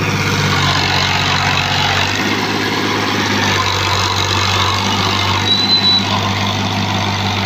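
Al-Ghazi tractor's diesel engine running steadily while hauling a fully loaded earth trolley. A short high squeak sounds a little past halfway.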